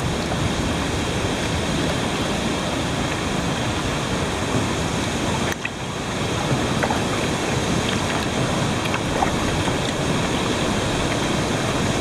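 Steady rushing of water where the mill race outflow pours back into the river.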